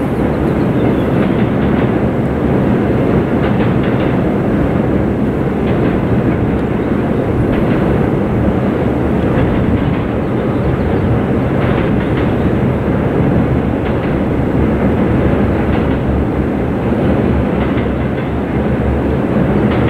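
Norfolk Southern intermodal freight train's container cars rolling steadily across a steel truss railroad bridge: a continuous rumble of wheels on rail, with a few faint clacks.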